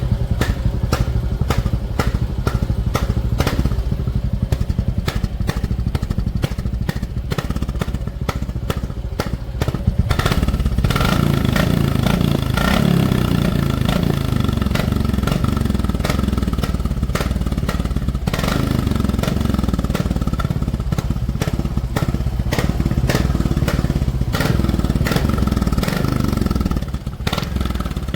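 Royal Enfield Classic single-cylinder motorcycle exhaust, fitted with a rubber silencer insert, thumping at idle, then revved and held twice, about ten seconds in and again after a short dip, before settling back to idle near the end.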